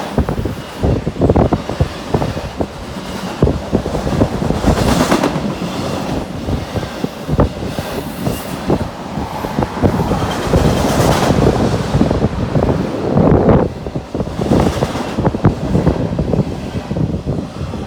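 Intermodal freight cars rolling past, steel wheels clattering and knocking irregularly over the rail joints with a continuous rumble.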